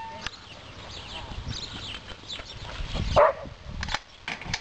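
A border collie barks once, loud and short, about three seconds in, over faint outdoor background. A few sharp clicks follow near the end.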